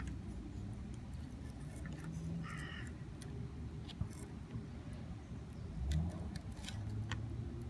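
A crow caws once, about two and a half seconds in, over a steady low rumble, with a few light scattered clicks.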